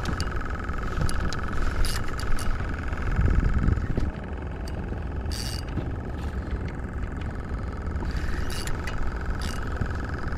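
Spinning reel being cranked against a hooked fish: a steady mechanical whir with a few sharp clicks, over wind rumble on the microphone.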